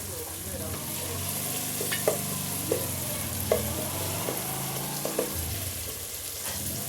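Food sizzling as it fries in a pot while it is stirred, the spoon clicking against the pot a few times.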